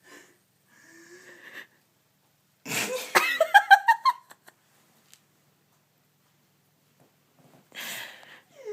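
A woman sneezing: a faint breathy, voiced intake, then a loud sneeze about two and a half seconds in that runs on into a rapid string of high-pitched voiced squeaks lasting over a second. A shorter, breathy burst follows near the end.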